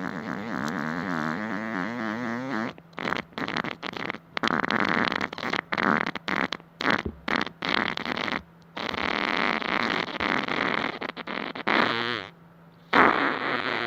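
Recorded human farts: a long fart with a wavering pitch, then a rapid string of short sputtering farts broken by brief silences, and a loud one near the end.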